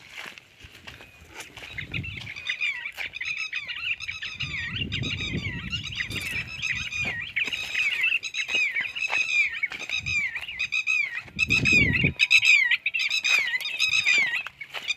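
Quail calling in a rapid series of short, curving notes, about two or three a second. Low rustling thuds of footsteps through dry grass come twice, around five and twelve seconds in.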